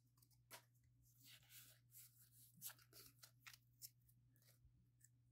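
Very faint handling of a stack of Pokémon trading cards: scattered soft rustles and light clicks as cards are slid and flipped between the hands, over a low steady hum.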